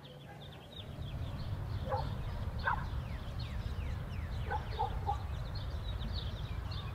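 Outdoor ambience of many birds chirping in short falling calls, with a few louder calls in the middle, over a steady low rumble that comes up about a second in.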